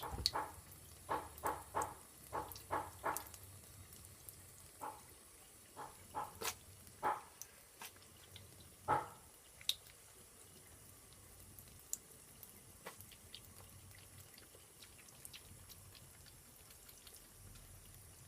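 A cat drinking from a trickling tap and sneezing as water gets up its nose: a quick run of short, sharp bursts during the first nine seconds, a few more after, over the faint steady trickle of the tap.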